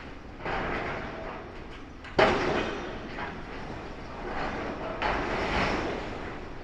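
Demolition excavator's hydraulic shear biting into and tearing a steel stairway frame: harsh metal grinding and screeching, with a sudden loud bang of metal about two seconds in, then more grinding that swells again near the end.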